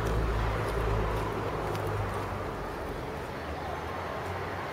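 Low engine rumble of a motor vehicle that fades away over the first two to three seconds, leaving quiet street background.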